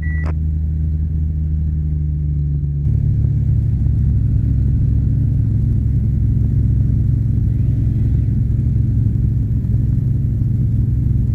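Cessna O-1 Bird Dog's Continental O-470 six-cylinder engine and propeller running steadily in cruise flight. The drone gets louder and rougher about three seconds in, as heard from inside the cockpit. A brief high tone sounds at the very start.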